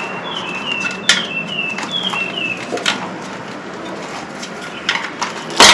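Tire levers clicking and knocking against a bicycle rim while a tubeless tyre is worked off, with one loud knock near the end. Through the first three seconds a string of short, high chirps falls in pitch, repeating about twice a second.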